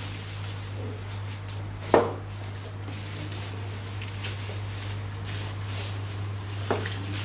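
Computer parts being handled during a PC build: a sharp knock about two seconds in and a fainter click near the end, over a steady low hum.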